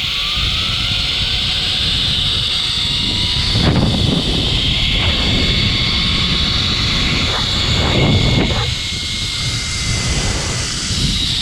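Zip line trolley running fast along its cable: a steady high-pitched whirring hiss, with wind rumbling and gusting over the microphone.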